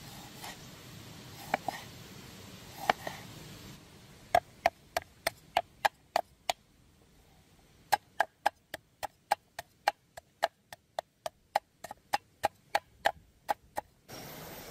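Chopping with a blade: a few separate knocks, then a long run of sharp, evenly spaced chops, about three a second, broken by one short pause.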